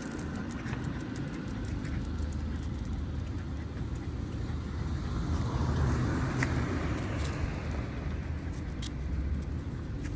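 A car driving past, its road noise swelling to a peak about six seconds in and then fading, over a steady low traffic rumble.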